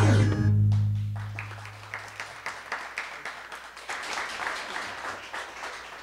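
The final held chord of an electronic organ, with a deep bass note, cuts off in the first second. Then comes applause: scattered, irregular clapping from a small group that fades out near the end.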